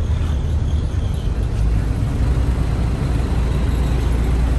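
River car ferry's engine running steadily under way: a continuous low rumble with a wash of noise above it.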